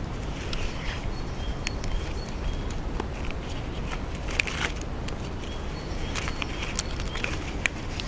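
Scattered clicks and rustles of hammock straps being tightened and handled between trees, over a steady low rumble, with short high bird chirps repeating in the background.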